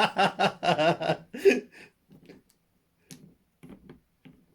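Laughter in quick, evenly spaced bursts for about two seconds, then a few faint light taps.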